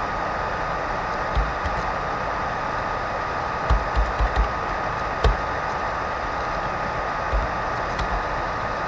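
Scattered keystrokes on a computer keyboard: dull low taps, single or in small runs of two or three, over a steady hiss with a thin steady tone.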